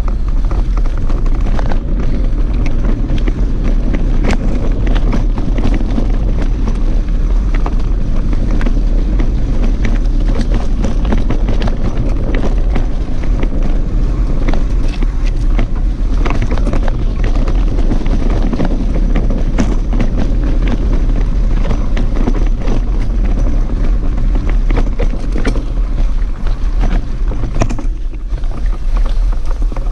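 Mountain bike ridden over a rough, leaf-covered dirt trail, heard through an action camera: steady wind rumble on the microphone with frequent rattles and knocks from the bike going over bumps.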